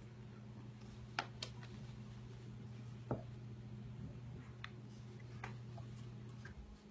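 Light clicks and taps of a kitten's paws and claws on clear plastic tubs, a few scattered strikes, over a faint steady low hum that cuts off near the end.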